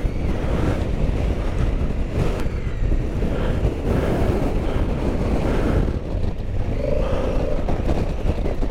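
Strong gusting wind buffeting the microphone, with a Honda Africa Twin's parallel-twin engine running underneath as the bike pulls away on gravel.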